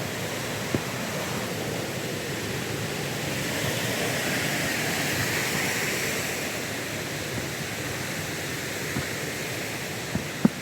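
Waterfall rushing steadily, a little louder in the middle, with a few short knocks, one about a second in and two near the end.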